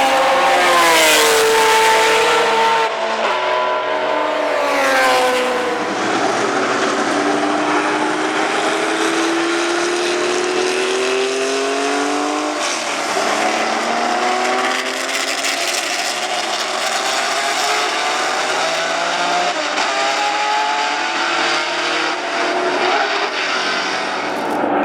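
Ferrari 512 M's 5-litre V12 racing engine at high revs. Its pitch falls over the first few seconds, then climbs in long rising sweeps with a sudden drop about halfway through as it shifts up and pulls away.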